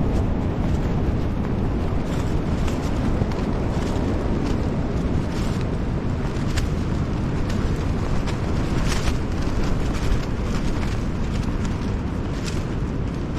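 Strong gusting wind, 30 to 40 mph, buffeting the tent and the microphone in a steady loud rumble, with scattered sharp taps and snaps throughout.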